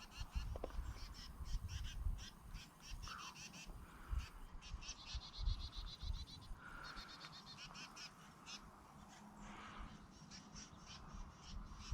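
Birds calling in repeated runs of quick, high chattering notes, with a few softer calls between, over a low wind rumble.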